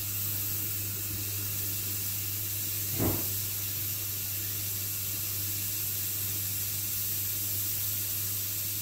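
Steady hiss of steam from a Rocket Giotto espresso machine's boiler as it builds to about 1 bar, over a low steady hum, with one short knock about three seconds in. The hiss is the boiler safety valve beginning to vent well below its rated pressure, the fault behind the machine blowing steam out of the top.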